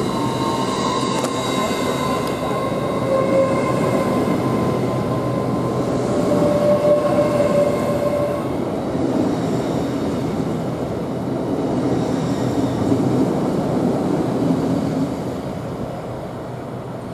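LNER Hitachi Azuma intercity train pulling out of the platform: a steady rumble of wheels on rail with a high electric whine of several held tones. The whine fades about halfway through, and the sound tails off near the end as the rear cab moves away.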